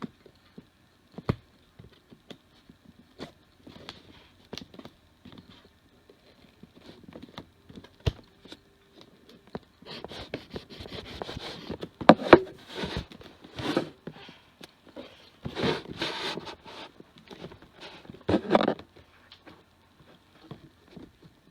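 Cardboard box being handled and ripped open, with taps and knocks against the box, then tape and cardboard tearing in several rough bursts in the second half.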